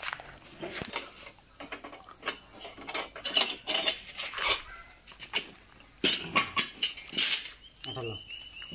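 Steady high insect drone, with a string of irregular short sharp clicks and knocks over it, loudest in the middle, and a quick run of short high notes near the end.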